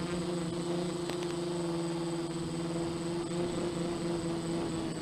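Quadcopter's electric motors and propellers buzzing with a steady, unchanging pitch while it holds position in loiter mode.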